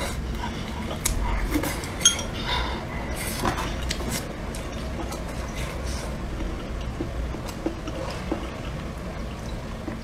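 Chopsticks clicking against a small bowl, with one sharp clink about two seconds in and a few more clinks soon after, then lighter ticks and sipping from a cup of milky drink later on.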